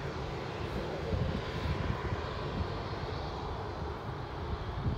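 Distant JetBlue Airbus A320 on final approach, its IAE V2500 turbofans giving a steady jet hiss and rumble. Wind buffets the microphone in irregular low gusts.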